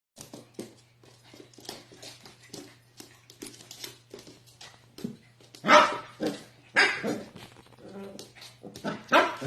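Dog barking: a run of short, quieter sounds, then loud single barks about 6, 7 and 9 seconds in, over a steady low hum.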